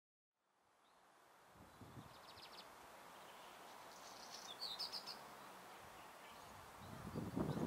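Outdoor ambience fading in, with small birds giving short chirps a few times. A low, gusty rumble of wind on the microphone builds near the end.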